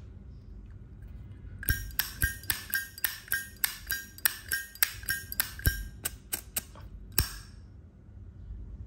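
A 1998 silver-plated Zippo lighter clicking over and over: about three sharp metallic clicks a second, each with a bright ring, for roughly five seconds starting near two seconds in.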